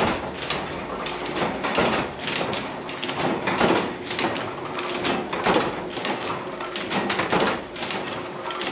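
Carry bag printing machine running, a clattering stroke about every two seconds as the press cycles, over a steady hum.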